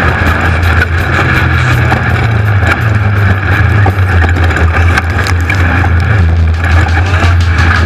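Off-road race car engine running hard at a fairly steady pitch, with frequent knocks and rattles from the car over rough ground.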